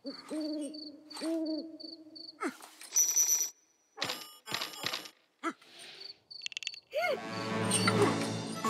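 Cartoon soundtrack: two hooting calls that rise and fall in pitch, over a high chirp repeating a few times a second. A few short electronic-sounding effects and clicks follow, and music starts near the end.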